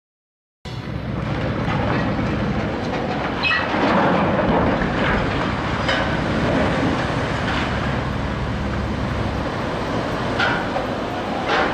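Side launch of a cargo ship: a loud, steady rumble as the hull slides down the launch ways and drops into the river, with churning water and several sharp knocks. It starts suddenly just under a second in.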